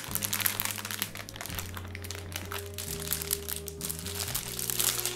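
Plastic candy wrapper crinkling and the paper strip of candy buttons rustling as the package is opened, over background music with held low notes.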